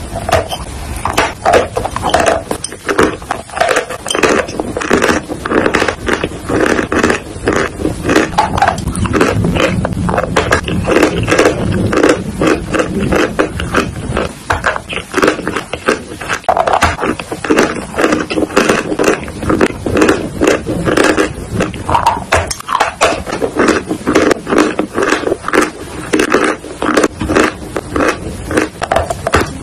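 Close-miked dry crunching of chalk being bitten and chewed, a dense run of irregular sharp cracks and crumbles many times a second.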